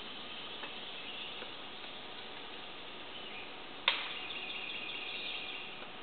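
Male pileated woodpecker pecking into rotten wood: faint scattered taps, then one sharp knock about four seconds in. The knock is followed by a couple of seconds of rapid high-pitched notes.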